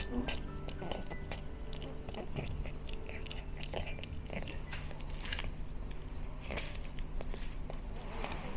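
A cat eating dry food from a steel bowl: irregular crunching and chewing of kibble close to the microphone.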